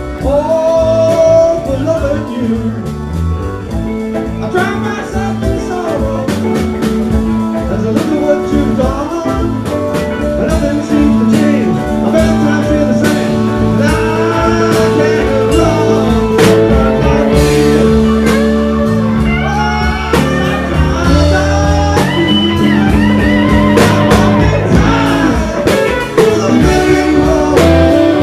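Live blues-rock band playing: electric guitar over keyboard, bass and drum kit, with held chords under bending melodic lines.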